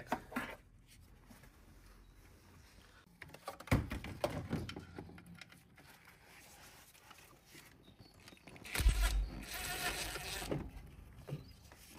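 Faint clicks and knocks of gloved hands and a spanner working the cable and wire connections on a car alternator. About nine seconds in, a louder rustling noise lasts a second or two.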